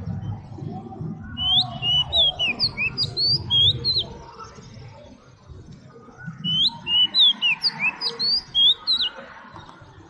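Oriental magpie-robin singing: two phrases of quick, clear whistled notes that slide up and down, each lasting about three seconds, the first starting about a second and a half in and the second about six and a half seconds in.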